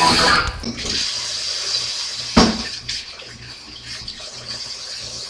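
Kitchen sink tap running while hands are washed under it, with a sharp knock about two seconds in. The end of a rock guitar tune cuts off in the first second.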